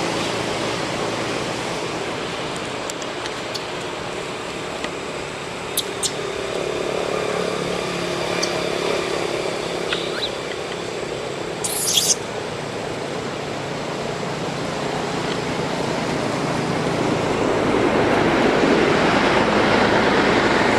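Steady outdoor background noise with a low motor-like hum, growing louder near the end. A few brief high chirps break in, the clearest about twelve seconds in.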